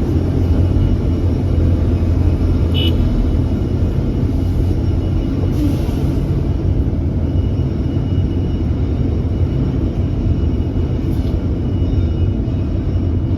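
Hydraulic excavator's diesel engine running steadily under load with a low, even rumble. A brief high-pitched squeak sounds about three seconds in.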